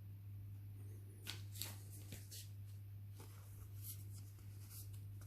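Pokémon trading cards being handled and slid one behind another, a run of soft flicks and swishes starting about a second in, over a steady low hum.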